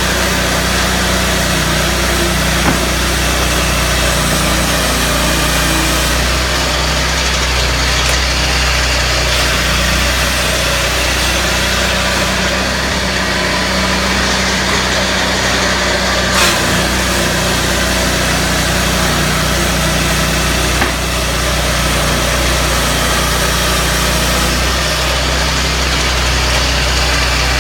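Portable swingblade sawmill running, its Honda 22 hp engine holding a steady note under an even rushing noise, with a brief knock now and then.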